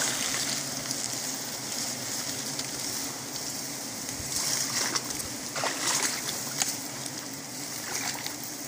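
A swarm of wild honeybees buzzing around their open comb as it is smoked out: a steady hiss with a low hum beneath it, and a few brief rustles about halfway through.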